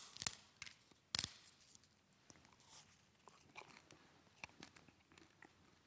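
A communion wafer being eaten: two sharp, crisp snaps, one at the start and one about a second in, then faint scattered crunching and small clicks of chewing.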